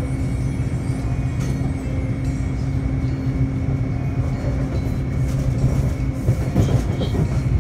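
Taipei Metro C301 train running at steady speed: a continuous rumble with a steady electric hum, and clicks and rattles near the end.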